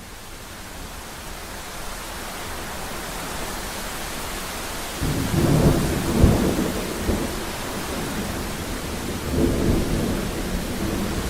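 Steady rain hiss fading in, then about five seconds in a long roll of thunder rumbles in, swelling again near the end.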